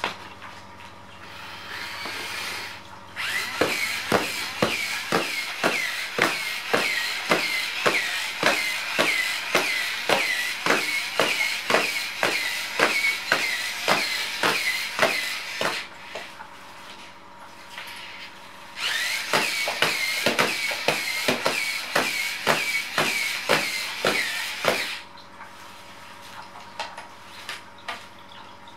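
Small electric motor of a cat-teaser robot whirring in quick repeated strokes: a clicking whine about three times a second, in two long runs with a pause of a few seconds between.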